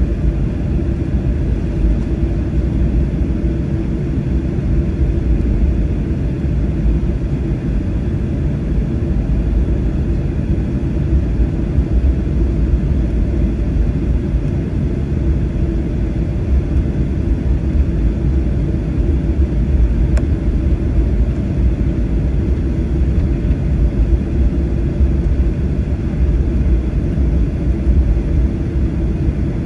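Cabin noise of a Boeing 737-800 taxiing: a steady low rumble from its CFM56-7B engines at taxi power and the roll along the taxiway, heard inside the cabin by the wing. A faint tick about twenty seconds in.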